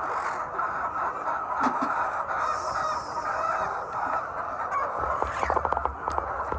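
A flock of hens clucking steadily in a poultry house, with a quick run of clucks about five seconds in.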